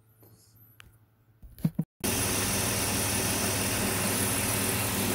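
BMW Z3 engine idling steadily, freshly fitted with a new oil filter housing gasket and running fine. It cuts in suddenly about two seconds in, after a moment of faint clicks.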